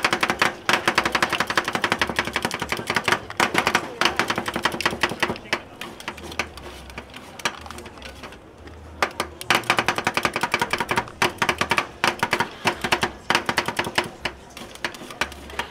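Knife chopping rapidly on a cutting board: a fast, even run of sharp strikes, with a short pause about eight seconds in.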